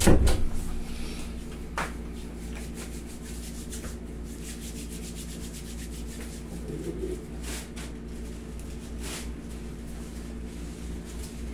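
Handling noise: a low thump right at the start, then a few soft, brief rustles and rubbing sounds over a steady room hum.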